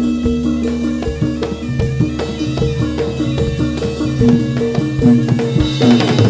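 Javanese gamelan music for a Jathilan dance: metal-keyed instruments play a short repeating melody over a steady drum beat. A falling swoop in pitch cuts across near the end.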